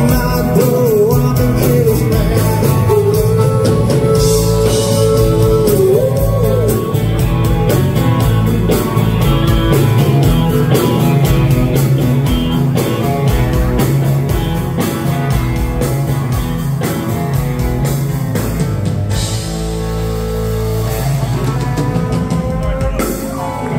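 Live rock band playing an up-tempo country-rock dance number: a steady drum-kit beat under bass, electric guitar and keyboards, with a bending melodic lead in the first few seconds.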